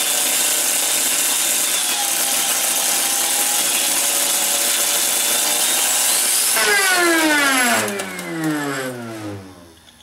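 Bissell floor cleaner's universal vacuum motor running flat out with power fed straight to its brushes, a loud hiss of arcing over its high whine as the brushes and commutator burn up. About six and a half seconds in it cuts out and spins down, its whine falling steadily until it has nearly stopped near the end.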